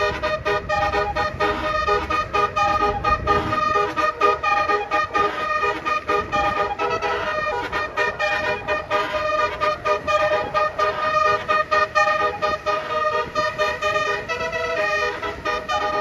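Bus telolet horn: a set of musical air horns playing a tune in fast, choppy toots in the 'dut dut' style, with several tones sounding together and the pitch changing from note to note. A low engine rumble underneath fades about three and a half seconds in.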